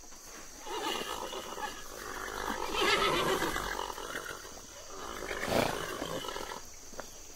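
A large animal calling: a long run of harsh, pitched cries that swell to their loudest about three seconds in, with one sharp, loud cry near the end before they stop.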